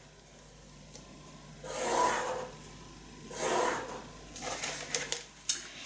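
A plastic pattern-making ruler and a felt-tip marker rubbing over drafting paper as a line is drawn along the ruler. There are two rubbing strokes about a second and a half apart, then a few light clicks near the end.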